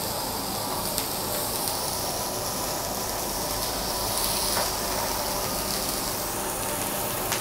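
Thick leaf squid sizzling on a WMF grill plate: a steady hiss with a few faint pops.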